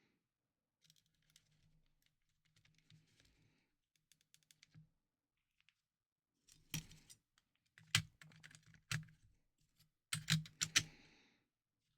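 Small clicks and taps of plastic console parts being handled and fitted together during reassembly: faint and scattered at first, then a few sharper clicks past the middle and a quick run of clicks near the end.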